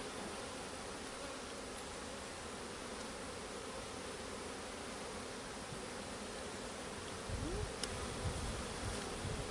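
Honeybees buzzing steadily around an opened hive whose honey boxes are being taken off. A few low bumps come near the end.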